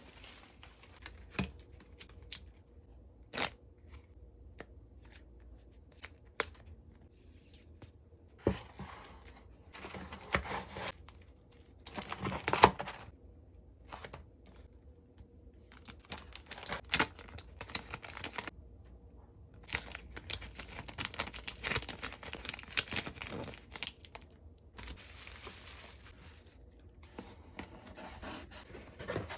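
Packaging being handled and torn open: crinkling and ripping with scattered sharp clicks and taps, in busy spells about twelve seconds in and again from about sixteen to twenty-four seconds.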